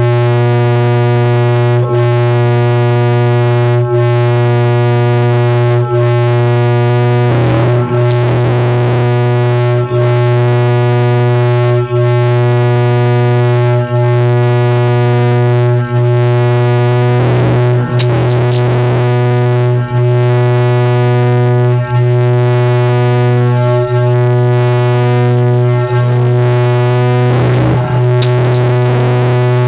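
Step WGN car audio system with four DIECOCK DM-15PRO woofers on two DIECOCK DA-3000CX amplifiers, playing one loud, steady low bass test tone rich in overtones for an SPL measurement run, peaking around 156 dB. The tone dips briefly about every two seconds, and short crackling rattles come through a few times.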